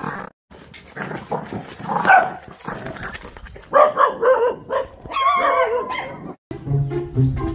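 Dog barking and yelping, with high, wavering whimpering cries about four to six seconds in.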